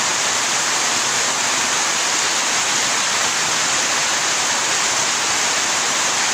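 Heavy rain falling steadily, with runoff pouring in streams off the edge of a corrugated roof and splashing below: an even, unbroken hiss.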